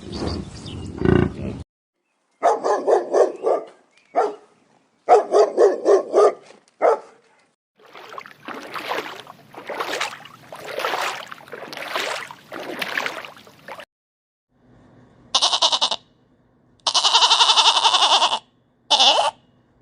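A string of separate animal calls with short silences between them: pulsed, pitched calls, then a longer run of rhythmic calls, then several shrill buzzing bursts near the end.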